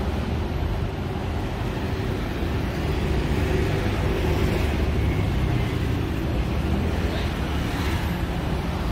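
Street traffic: the steady low noise of vehicle engines running and passing on a busy road.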